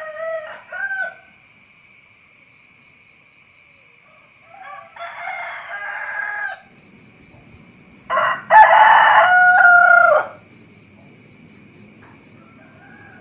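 Rooster crowing: a short call at the start, another crow about five seconds in, and a much louder crow of about two seconds starting about eight seconds in. Steady cricket-like chirping runs underneath.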